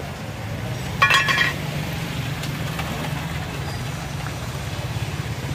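About a second in, a stainless-steel canister lid is set down with a short ringing metallic clatter. Under it runs a steady low hum of engine traffic.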